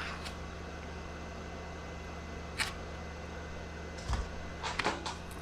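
A few sharp clicks and ticks of a pick working under the shattered glass digitizer of an iPad, the clearest about two and a half seconds in and a small cluster near the end, over a steady low hum.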